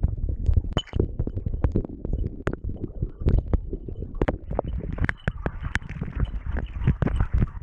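A hunting dog running and splashing through a shallow rocky stream, heard from a camera worn on the dog: a rapid, irregular run of knocks, splashes and low thumps.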